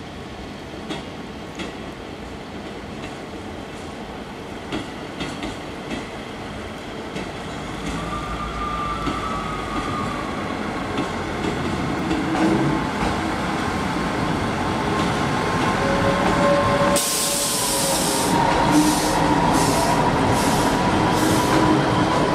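Class 158 diesel multiple unit running over station pointwork: a steady rumble with scattered wheel clicks over the rail joints, and a thin wheel squeal on the curves from about eight seconds in. About seventeen seconds in a loud hiss starts, followed by several shorter hisses.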